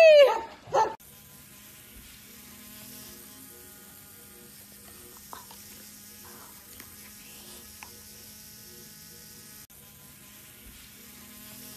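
A loud cry falling steeply in pitch ends within the first half second. After that comes a faint, steady buzzing hum with a few faint clicks.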